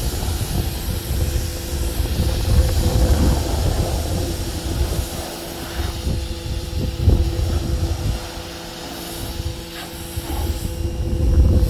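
Giraffe Tools Grandfalls wall-mounted electric pressure washer running while spraying, a steady motor hum over a rushing water jet, with low rumble from wind on the microphone. The rumble eases off for a couple of seconds about eight seconds in.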